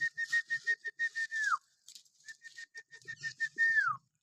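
Whistling: a high, fluttering note held for about a second and a half, then sliding down in pitch at its end, given twice. Faint scratchy noise and light ticks lie under it.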